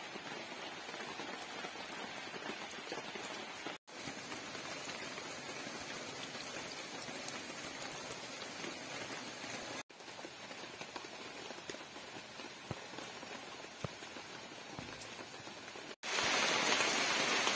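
Heavy rain falling on puddles and wet ground, a steady even hiss. It breaks off for an instant three times and is louder for the last second or two.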